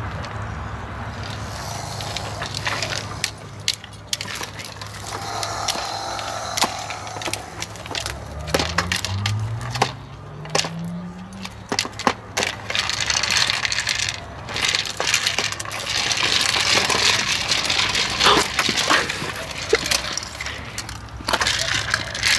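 Battery-powered treat ball rolling and knocking about on a concrete path as a dog noses it along: hard plastic clicks and clatters, with dry treats rattling inside. A low hum runs underneath and rises in pitch about halfway through.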